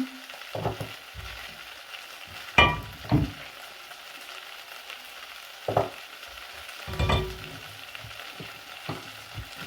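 Tripe dry-frying in a pan with onion and tomato, sizzling steadily while it is stirred; the stirring scrapes and knocks against the pan about five times.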